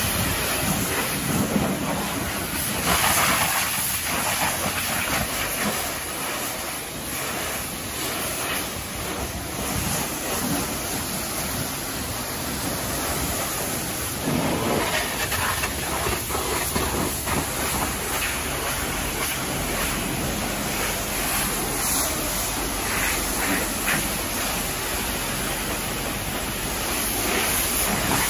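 High-pressure washer lance spraying water over a car's body panels and wheels, rinsing off snow foam: a steady hissing spray that swells louder now and then as the jet moves.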